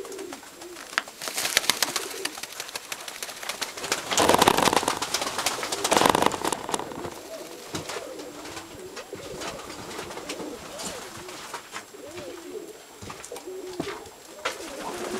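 Domestic pigeons cooing in a loft, with repeated low, rolling coos throughout. A few louder bursts of rustling noise come between about four and six seconds in.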